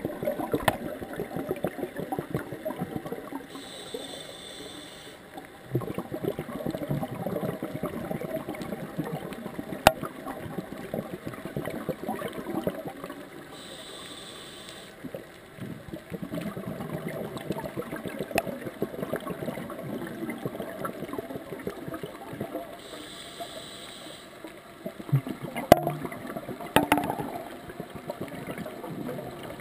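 Scuba diver breathing through a regulator: a short hissing inhale comes about every nine to ten seconds, three times in all. Between the inhales there are long stretches of crackling, bubbling exhaust. A few sharp knocks come about ten seconds in and again near the end.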